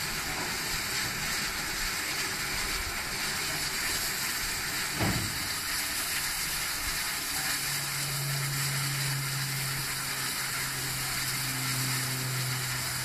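Bulleid West Country class steam locomotive 34007 standing and simmering, giving a steady hiss of steam. There is a single knock about five seconds in, and a low steady hum comes in about halfway through and keeps on.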